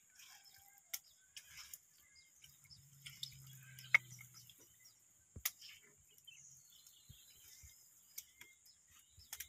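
Plastic spatula scraping and tapping freshly hand-ground paste off a stone grinding slab into a ceramic plate: a few faint scattered clicks and scrapes, with birds chirping and a steady high insect hiss behind.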